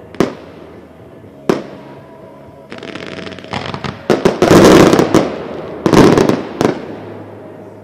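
Consumer fireworks (Category 1.4G, up to 50 mm calibre) going off: single sharp bangs, then fine fast crackling about three seconds in, followed by a dense volley of loud bursts. Two or three more bangs come just after the middle, and the sound dies away near the end.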